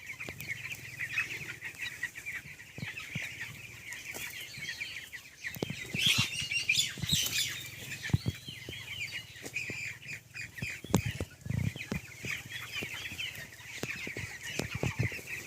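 A flock of 19-day-old broiler chicks peeping and cheeping in a steady chorus, with scattered clicks among them.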